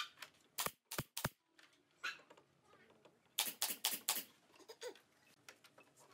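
Pneumatic nail gun firing nails into pine bench slats: about nine sharp shots at uneven spacing, with a quick run of four about three and a half seconds in.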